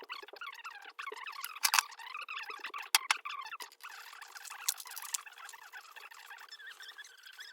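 Small-parts handling as butt connectors are fitted onto power-cord wires: several sharp clicks over a continuous thin, chirping squeak.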